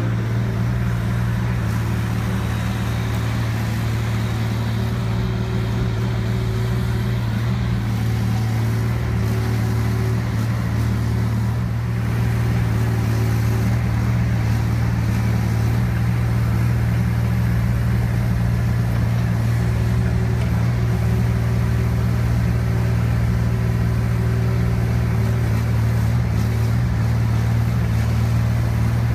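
Mini excavator's Yanmar diesel engine running at a steady speed with a constant low drone while the arm and bucket dig into soil.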